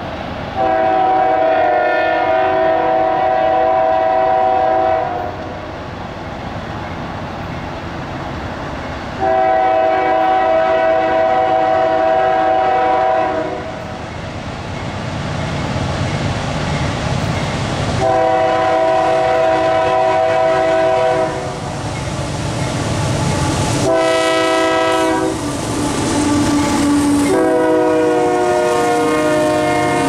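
Locomotive's Nathan K3HA three-chime air horn sounding the grade-crossing signal: long, long, short, long. The last blast drops in pitch as the lead unit passes. Between the blasts the diesel locomotives and train rumble louder as they draw near.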